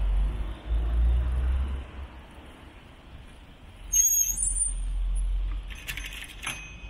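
Low rumble that comes and goes in gusts, wind buffeting a small camera's microphone. A brief metallic jingle of clicks comes about six seconds in.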